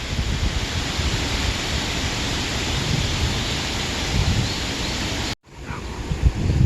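Wind blowing through grass, a steady rustling hiss with gusts buffeting the microphone in a low rumble. The sound cuts out abruptly for a moment about five seconds in, then resumes with less hiss.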